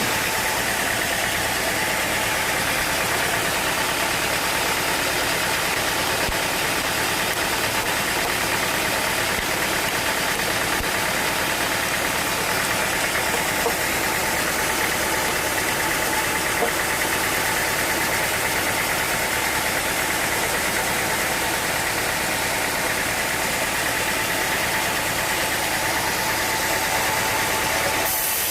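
Sawmill machinery running steadily: a continuous engine-like drone with a faint steady whine over it.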